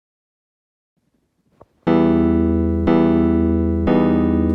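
Silence, then about two seconds in, background music starts: a keyboard playing held chords, with a new chord struck about once a second.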